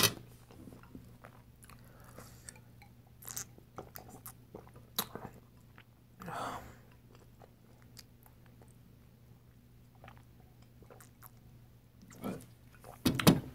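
Close-miked mouth sounds of a person eating: soft chewing with scattered small clicks, a short breathy sound about six seconds in, and louder gulps from drinking near the end.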